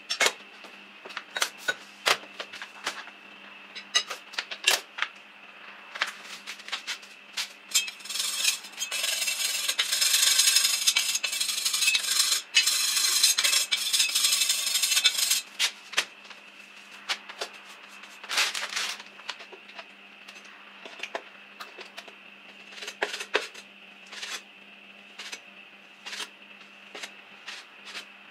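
Kitchen utensils and dishes clinking and knocking in irregular sharp clicks. About eight seconds in, a dense, louder stretch of rapid clattering runs for some seven seconds. A steady hum sits underneath.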